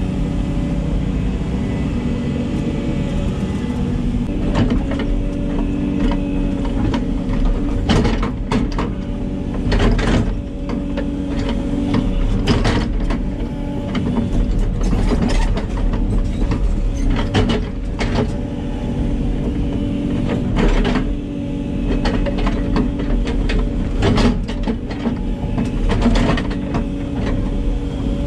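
Hidromek 140 hydraulic excavator running steadily, heard from inside its cab, with sharp clanks and knocks every few seconds from the bucket and boom linkage as it works the fill.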